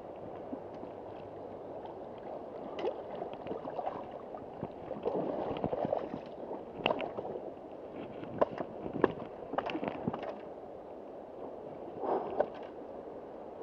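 Shallow river water rushing and gurgling over stones, with irregular splashes and sloshes as a large Atlantic salmon is lifted by hand from the shallows.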